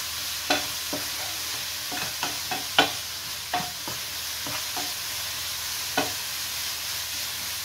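Wooden spatula stirring and scraping a grated-coconut and jaggery filling with cashews and raisins in a nonstick frying pan, in irregular scrapes and taps over a steady soft sizzle as the jaggery syrup cooks down.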